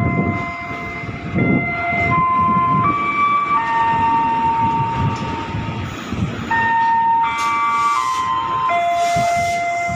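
Electric commuter train pulling into a station platform: low rumble of the wheels on the rails, with a high whining tone that holds and then steps to new pitches every second or so as it slows.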